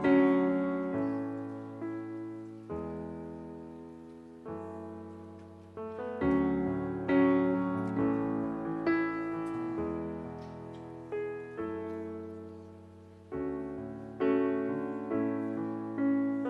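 Background music: slow solo piano chords, each struck and left to ring and fade.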